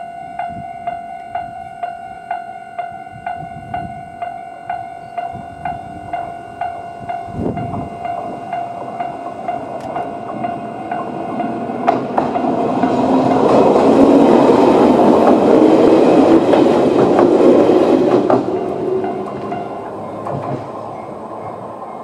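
Railway crossing alarm ringing a steady, rhythmic electronic bell tone of the Toyama Chihō Railway type. About halfway through, a Toyama Chihō Railway 10030-series electric train passes over the crossing, its wheels clattering on the rails and loudest for several seconds. The train noise dies away near the end.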